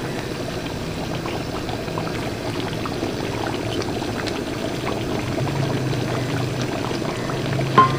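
A large pot of chicken and tomato masala bubbling steadily as it cooks on the stove, with a single knock near the end.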